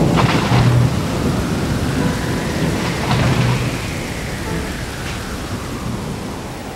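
Thunderstorm: steady heavy rain with rolling thunder, the rumbles heaviest at the start and again about three seconds in, the whole slowly getting quieter.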